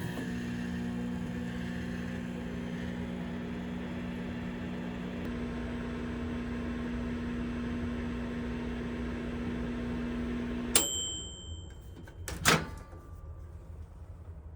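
Microwave oven running with a steady hum, which stops about eleven seconds in with a short beep signalling the end of heating, followed a second and a half later by a sharp click.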